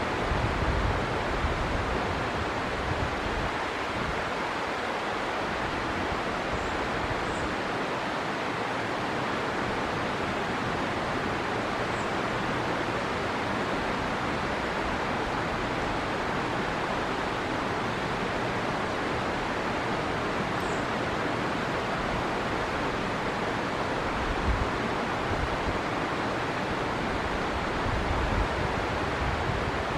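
River water flowing steadily, an even rushing noise, with a few faint, brief high chirps from birds and now and then a low rumble of wind on the microphone.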